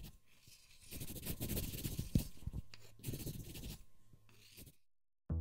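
Pencil scratching across paper in quick, irregular strokes, as a sketch is drawn, stopping shortly before the end. A plucked bass note begins right at the end.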